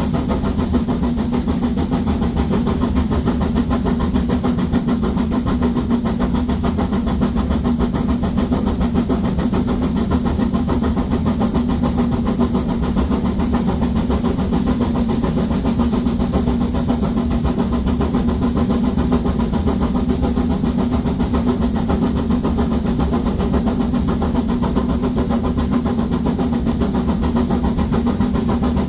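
Narrow-gauge steam locomotive 99 7240-7, a 2-10-2 tank engine, working hard up a 1-in-25 grade with seven loaded coaches: a loud, steady exhaust that does not let up.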